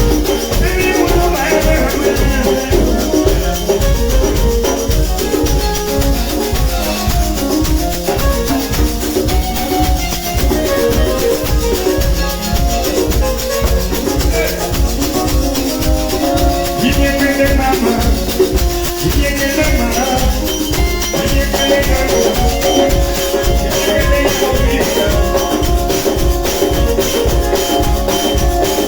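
Band playing dance music with a steady drum beat and shakers, during a sound check before a performance.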